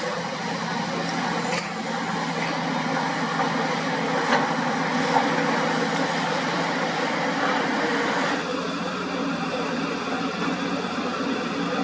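Hydraulic excavator's diesel engine running steadily at work, with a few short knocks. The sound changes abruptly about eight seconds in.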